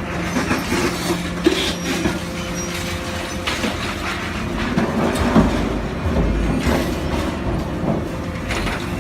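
Movable hydraulic scrap-metal shear/baler working on scrap metal: a steady machine hum with repeated irregular metal clanks and knocks, and a heavier low rumble about five to six seconds in.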